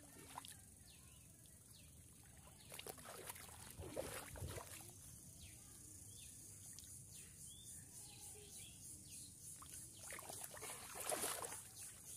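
Splashing and sloshing of hands and bare feet in shallow muddy water while grabbing at a catfish, in bursts about three to four seconds in and again near eleven seconds, over a steady high hiss.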